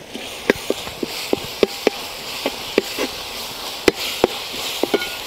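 A perforated metal ladle stirring shallots frying in oil in a metal pot, knocking and scraping against the pot many times over a steady sizzle. Some of the knocks ring briefly.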